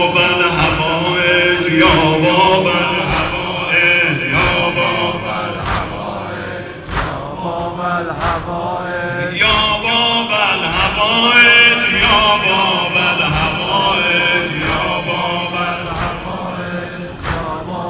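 Sineh-zani: a crowd of men beating their chests in unison, about one and a half sharp slaps a second, under a mourning lament (noha) sung and chanted by men's voices.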